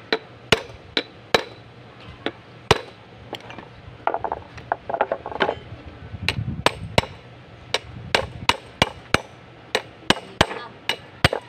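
A steel combination wrench knocking on the metal housing of a bus starter motor, many sharp knocks with a short metallic ring at an uneven pace of about two to three a second, as the starter housing is tapped apart. A short clatter of metal parts comes about halfway through.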